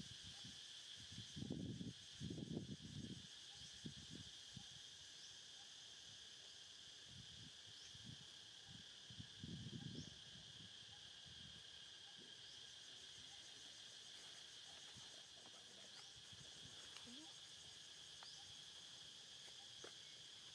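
Faint, steady high-pitched insect chorus droning without a break, with a few low muffled rumbles in the first few seconds and again about ten seconds in.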